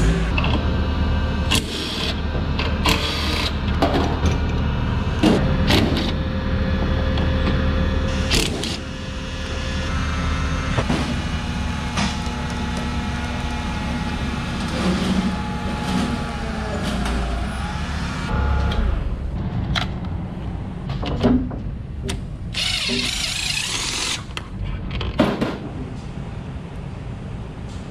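Forklift engine running with a steady hum while its lift works, the pitch of its tones sliding about two-thirds of the way through, amid repeated metal clanks and knocks. A short hiss comes near the end.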